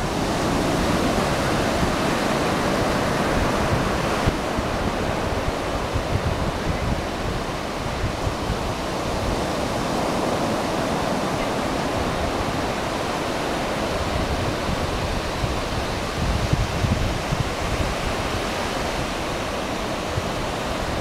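Ocean surf washing steadily onto the shore, with wind buffeting the microphone in low rumbles, strongest about sixteen seconds in.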